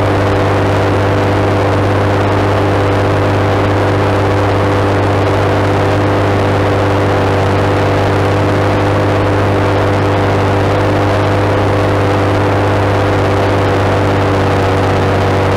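The Cummins six-cylinder turbo diesel of a JCB Fastrac 7270 is growling at a steady pitch, under load as it pulls a six-furrow plough.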